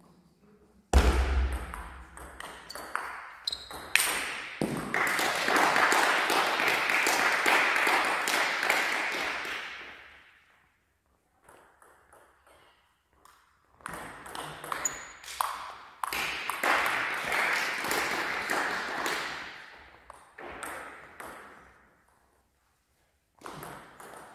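Table tennis rallies: the celluloid ball clicks sharply off rubber bats and the table, in quick runs of strokes with short pauses between points. Twice a loud noisy rush swells over the clicks for several seconds and then fades out.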